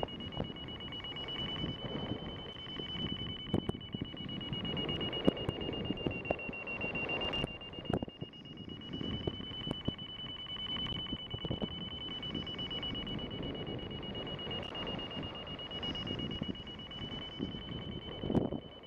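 Paragliding variometer beeping in a fast, unbroken stream at one steady high pitch, signalling a strong climb in cloud suck. Wind rushes over the microphone underneath, with a few knocks.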